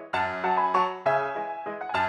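Piano music: notes and chords struck in quick succession, each ringing and fading.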